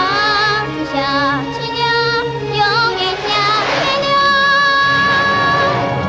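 Cartoon soundtrack music: a high singing voice carries a melody with vibrato, ending on a long held note, over instrumental backing.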